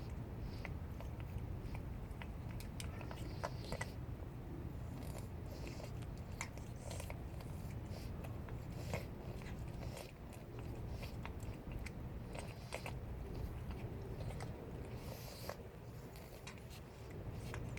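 A cat chewing and crunching food: a steady run of small, crisp crunching clicks over a constant low rumble.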